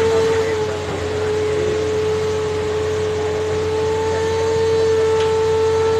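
Amphibious excavator running as it crawls through the mud, its diesel engine working with a steady high-pitched whine over a low hum, getting slightly louder toward the end.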